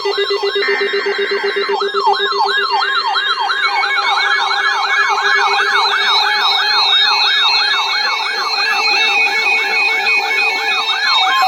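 Several electronic sirens sounding at once, their pitch sweeping up and down in a fast yelp of about three sweeps a second over a few steady held tones. The sweeps start a little slower and quicken after the first couple of seconds.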